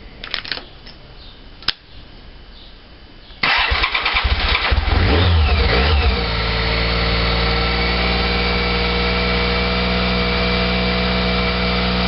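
BMW K75 inline three-cylinder engine being started. A few clicks from the ignition and switches come first. About three and a half seconds in the engine cranks briefly and catches, rises in revs, then drops back about six seconds in to a steady idle.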